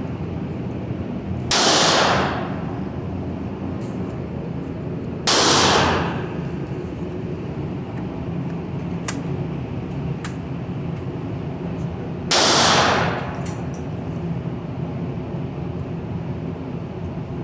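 Three loud single gunshots spaced several seconds apart, each with a short echoing tail, over steady background noise, with a few fainter sharp cracks in between.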